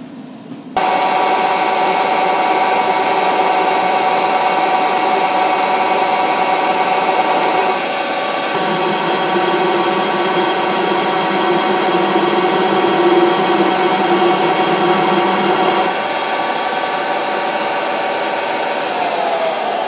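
Milling machine spindle starting about a second in and running steadily with a whine while it center drills and pilot drills a hole in a bellhousing flange. The sound changes twice along the way, and near the end the pitch drops as the spindle slows.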